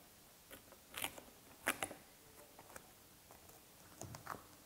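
Faint, scattered clicks and rustles of handling: a peeled-off protective side pad from an electric unicycle and a flat-head screwdriver being set down on a tabletop, with a few sharper taps about a second in and again near the end.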